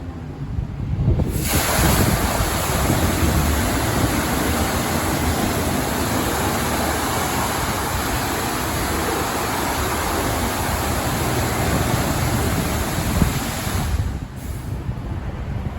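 High-pressure water jets of a LaserWash 4000 touchless car wash spraying, a loud steady hiss that starts about a second in and cuts off near the end, over a low rumble.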